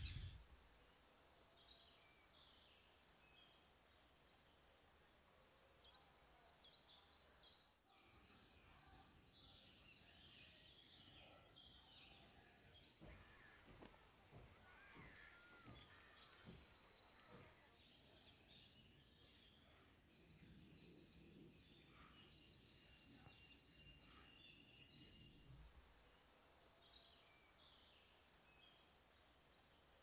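Very faint outdoor ambience with small birds chirping and singing in the background, short high calls scattered throughout.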